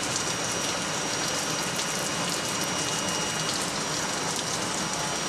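Looftlighter electric charcoal lighter blowing hot air into lump charcoal: a steady hiss with a thin high whine, over fine crackling as the coals catch and spark. Drizzling rain patters throughout.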